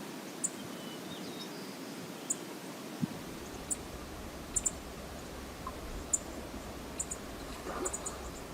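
Steady rush of river water, with scattered short high-pitched ticks every second or so.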